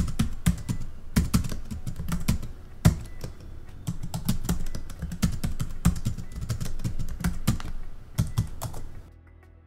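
Typing sound effect: a rapid, irregular run of key clacks, several a second, that stops about a second before the end.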